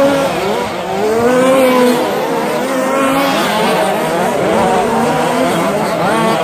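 Radio-controlled short course race cars' engines revving up and down as several cars race around the track together, their pitches overlapping and rising and falling.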